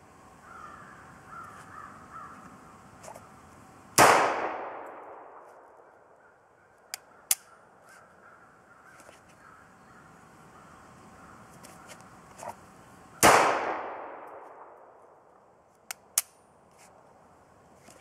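Two shots from a Sig Sauer P227 .45 ACP pistol, about nine seconds apart, each followed by a long echo that dies away over a couple of seconds. A few light, sharp clicks come between and after the shots.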